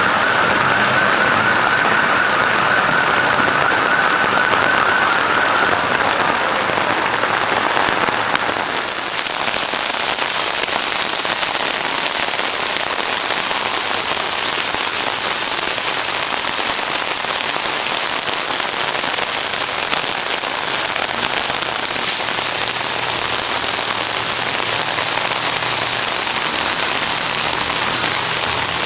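Heavy monsoon rain and rushing floodwater: a steady, loud hiss of water. About eight seconds in it changes abruptly to a brighter, harsher hiss.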